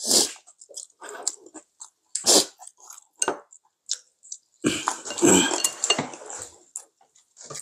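Close-miked eating sounds: a person chewing a mouthful of bulgogi in irregular bursts, with a denser stretch of chewing about two-thirds of the way through, and a few light clicks of utensils against dishes.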